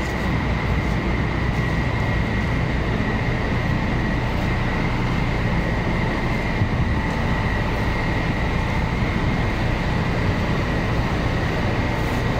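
Steady machinery noise: a constant low rumble with a thin high whine running over it, unchanging throughout.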